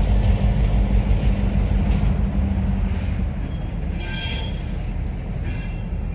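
Freight train rolling, with a heavy low diesel rumble. Steel wheels give two short high-pitched squeals against the rail in the second half.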